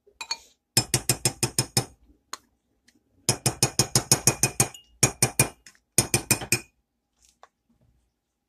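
A spoon tapped rapidly against the rim of a glass mixing bowl, knocking shortening off it, in four quick runs of sharp clinks several a second.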